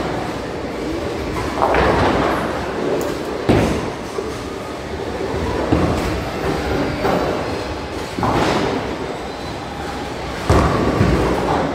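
Bowling balls rolling down the lanes with a steady rumble, and pins crashing as they are struck, several times over, amid the din of a busy bowling alley.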